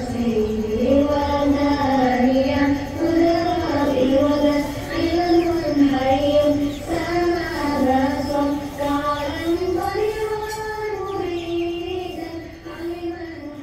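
Music with a high voice singing a slow melody of held notes over a low steady drone, growing quieter over the last few seconds.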